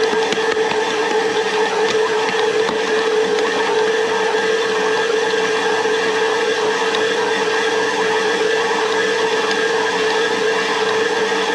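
Electric stand mixer running steadily with a constant motor hum, kneading bread dough.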